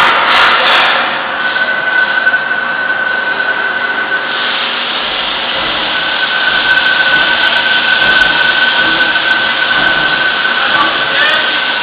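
CNC machine cutting a lubrication groove into a part: steady machining noise with a high, even whine that drops out for a moment about midway and then returns.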